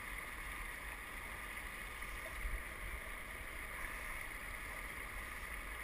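Quiet, steady ambient noise of river water lapping, with a low rumble and no distinct splashes.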